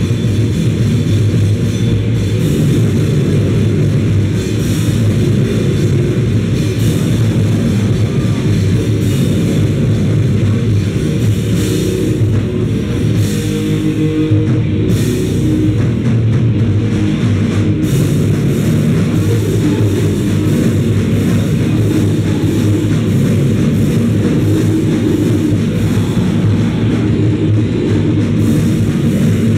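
A noisecore band playing live with electric guitar and drum kit: loud, dense and continuous, heaviest in the low end, with cymbal strikes cutting through.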